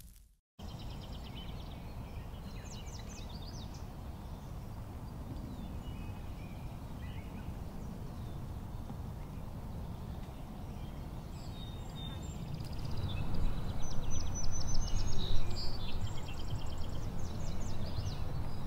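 Outdoor ambience of wind on the microphone, with small birds chirping in short trills. The wind picks up and gusts harder about two-thirds of the way through.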